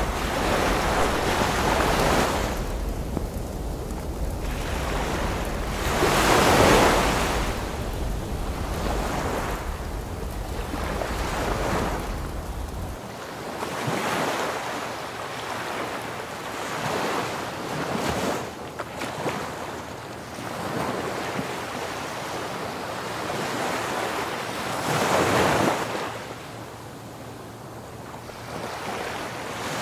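Ocean surf breaking and washing up the beach, rising and falling in swells every few seconds. Low wind rumble on the microphone runs through the first half and cuts off suddenly about halfway through.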